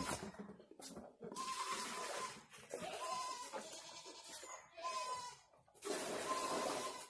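Farm animals calling repeatedly: about four separate pitched calls, each lasting around a second, with short gaps between.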